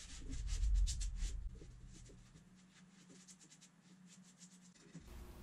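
Hand sanding along the edge of a plywood tabletop: a quick run of scratchy rubbing strokes for about two seconds, then fading out.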